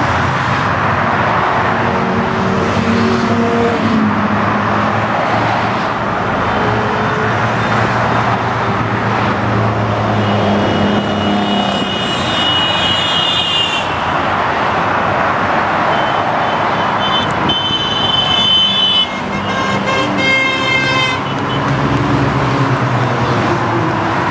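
Road traffic: motor scooters and cars running along a multi-lane road, a steady wash of engine and tyre noise. Two stretches of steady high pitched tone come about halfway through and again a few seconds later.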